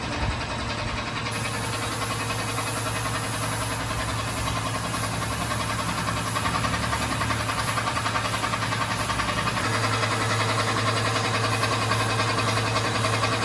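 A machine motor running steadily, with a low hum that shifts slightly about ten seconds in.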